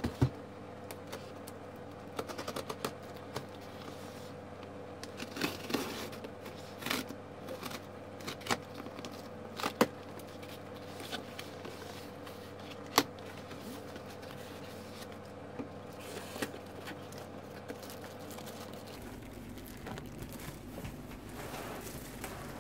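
Utility knife cutting through the packing tape and cardboard of a shipping box, with scattered sharp clicks and scrapes and cardboard tearing. Near the end, plastic wrap crinkles as the wrapped package is pulled out.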